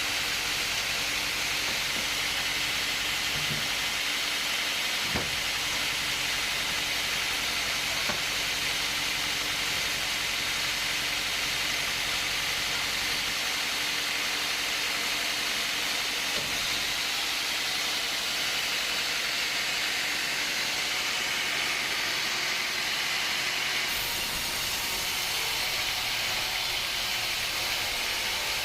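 Steady hissing machine noise with a faint constant hum and a few light knocks; the hiss changes character about 24 seconds in.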